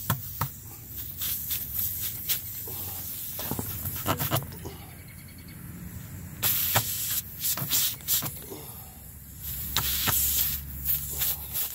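Air hissing in spells from a punctured tire as a plug-kit reamer is worked in the hole, with scraping clicks of the tool against the rubber.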